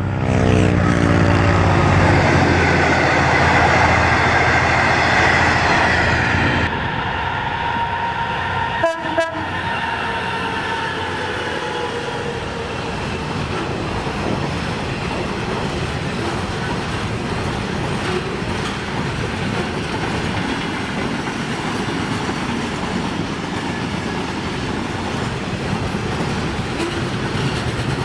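Diesel train passing on the line. A horn note fades at the start, then the engine runs with a steady pitched note. After an abrupt change a few seconds in, a couple of sharp clacks from the wheels follow, then the even rolling noise of the train on the track.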